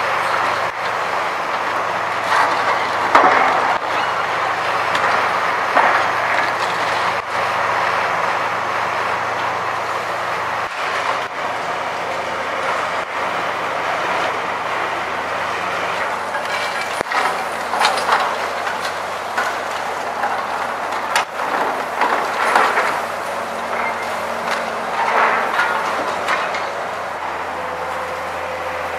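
High-reach demolition excavator running, its crushing jaw biting and scraping through concrete and metal of the building. Louder bursts of crunching and falling debris come every few seconds over a steady engine hum.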